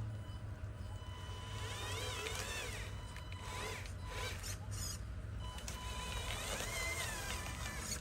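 Small electric motor and gearbox of an RC construction model whining, its pitch rising and falling a few times as it speeds up and slows, over a steady low hum.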